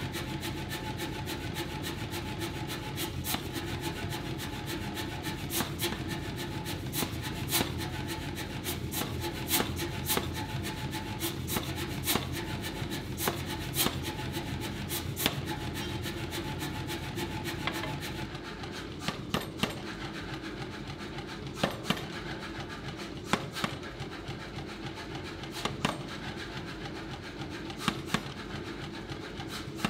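Power hammer running and striking a hot 1.5-inch round steel bar held in tongs, upsetting it: a steady mechanical din with many sharp knocks. About 18 seconds in it drops somewhat quieter, leaving the running noise with only occasional sharp ticks.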